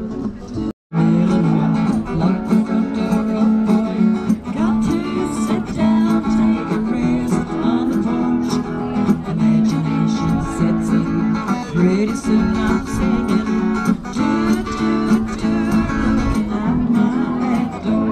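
Strummed acoustic guitar music with a singing voice at times, cutting out for a moment about a second in.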